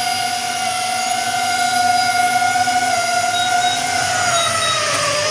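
DJI Avata 2 FPV drone hovering, its propellers and motors making a steady multi-tone whine that sags slightly in pitch about four seconds in.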